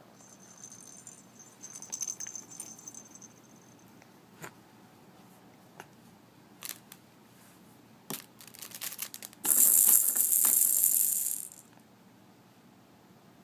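Baby's rattle toys jingling and clattering as they are batted about: a light jingle for the first few seconds, a few scattered clicks, then about two seconds of loud, continuous high-pitched rattling near ten seconds in.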